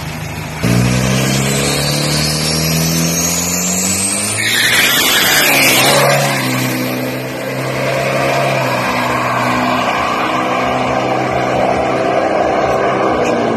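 Turbo-diesel Toyota Fortuner launching hard at full throttle. The engine note jumps in suddenly under a second in and climbs in pitch with a thin rising turbo whistle above it, loudest around five to six seconds in. It dips briefly a little after that, then runs on steadily as the SUV pulls away down the strip.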